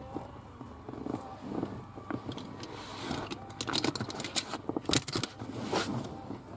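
Handling noise of hands working behind a car dashboard while feeding a boost gauge's wiring through: irregular rustling, small plastic clicks and knocks, with a few sharper knocks about four to five seconds in.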